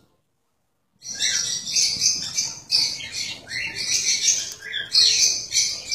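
Cockatiels chattering in quick, harsh chirps and squawks, many short falling calls one after another. They begin after about a second of silence.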